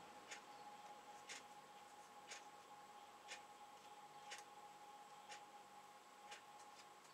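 Faint ticking of a clock, one tick about every second, over quiet room tone with a faint steady hum.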